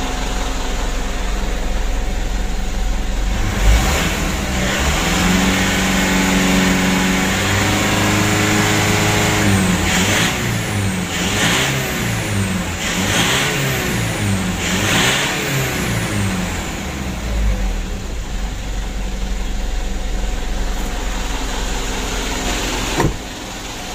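2012 Mitsubishi Pajero Sport Dakar's four-cylinder turbodiesel idling, then revved: held up for a few seconds, then blipped about four times, with a turbo whistle rising and falling with each rev, before settling back to idle. The turbo, fitted with a new cartridge, sounds clean, with no rattle.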